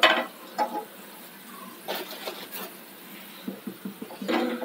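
Eggs being set one at a time into an aluminium pot of water: light knocks of egg against the pot and small splashes, the sharpest knock at the very start.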